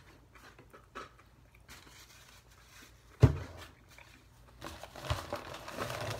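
Quiet chewing of a mouthful of burger, then a single loud thump about three seconds in. Near the end comes steady crinkling and rustling.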